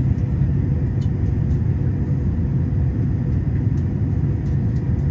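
Steady low rumble of an Airbus A380's cabin in cruise: engine and airflow noise heard inside the passenger cabin, with a faint steady hum.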